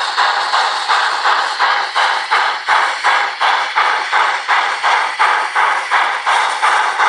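Sound decoder of a Rivarossi H0 Br 96 Mallet steam locomotive model playing steam chuffs through its small onboard loudspeaker, an even beat of about three exhaust beats a second.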